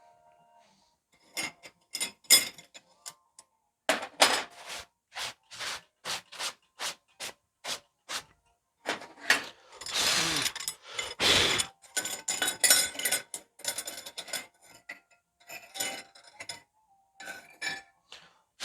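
Scale and baked anti-scale coating being scraped and scrubbed off steel knife blades by hand after a normalizing cycle. It comes as a run of separate rough strokes, closer and denser in the middle.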